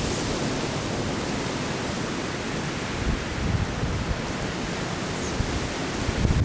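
Steady rushing noise that starts abruptly, with low rumbles swelling about three and a half and six seconds in.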